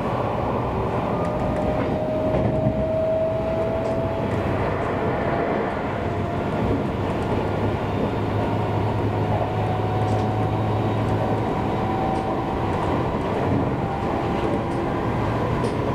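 Seibu Railway electric train running, a steady rumble with a faint whine that slowly rises in pitch.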